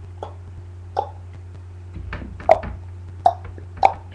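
A person imitating a horse trotting with a string of clopping mouth clicks, about one to two a second, growing louder after the first couple of seconds, over a steady electrical hum.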